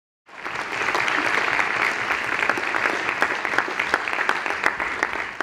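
Audience applauding: dense, steady clapping that starts just after the beginning.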